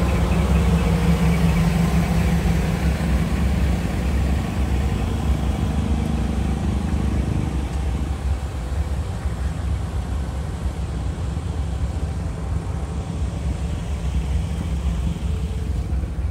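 A large truck engine running, low and steady. It gets somewhat quieter about eight seconds in.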